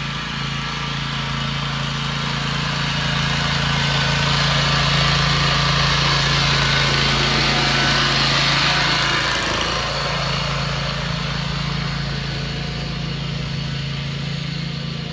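Small gasoline engine of a ride-on core aerator running steadily as the machine drives across a lawn. It is loudest around the middle, and its steady hum breaks briefly just past halfway before carrying on.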